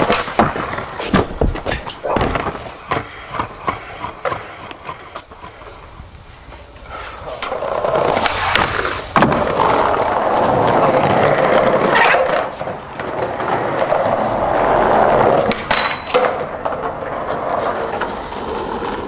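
Skateboard wheels rolling over wooden planking with a steady rumble, broken by sharp clacks and knocks of the board hitting the deck during tricks.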